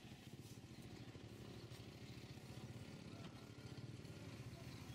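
A vehicle engine idling steadily, heard faintly as a low, evenly pulsing rumble, with a few light knocks.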